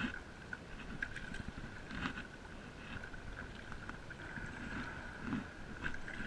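Stand-up paddle strokes: the paddle blade dips and pulls through lake water with small splashes and drips about once a second. A steady high tone sits underneath.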